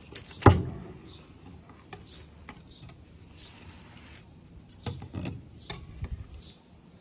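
A large knife cutting through a cheese-topped grilled meat slab and knocking against a wooden cutting board: one sharp knock about half a second in, then a few smaller knocks and clacks around five to six seconds as the pieces are handled with metal tongs.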